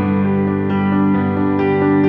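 Slow instrumental background music of held chords, with new notes coming in about once a second.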